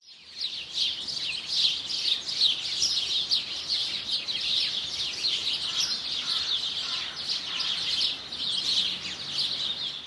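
A chorus of small songbirds chirping, many quick high chirps overlapping one another without a break; it fades in at the start.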